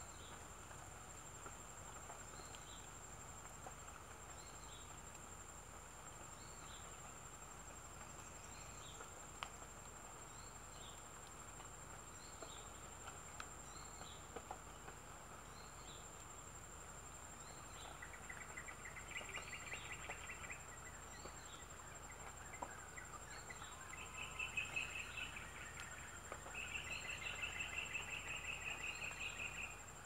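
Bulbul nestlings begging with rapid, buzzy trills in bursts that begin a little past halfway and are loudest near the end. Behind them runs a steady high insect drone, with a short chirp repeating about every second and a half.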